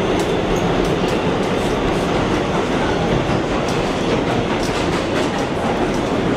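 Kawasaki R211T open-gangway subway train running, heard from inside the car: a steady rumble with irregular light clicks.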